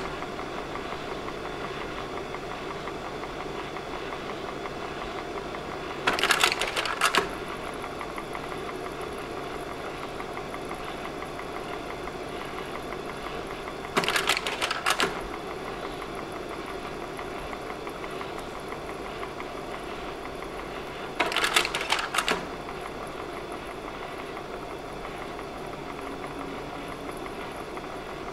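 Slide projector running with a steady fan hum, and three times a loud clattering slide change, each lasting about a second, as the next slide is advanced.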